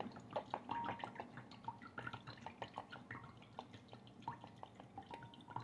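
Worcestershire sauce dripping from its bottle onto deer steaks in a bowl: a faint, irregular run of small drips and splats.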